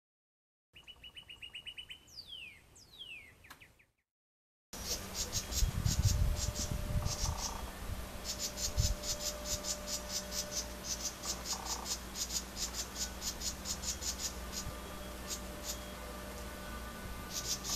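A house wren scolding: trains of rapid, harsh, dry chatter notes, repeated in bursts, the alarm call of an agitated wren. It is preceded by a short intro sound of quick beeps and falling whistles that stops about four seconds in.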